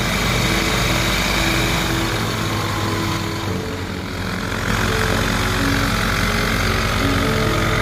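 Tecnam P2002 light aircraft's four-cylinder Rotax engine and propeller running steadily at low power as the plane taxis.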